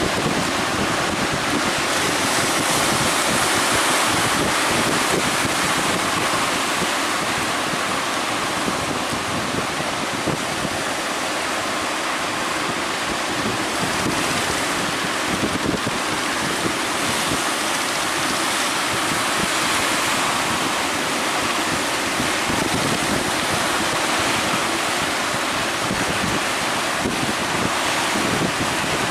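Big surf breaking and rushing at a river mouth, with wind buffeting the microphone; a continuous rushing noise that swells and eases.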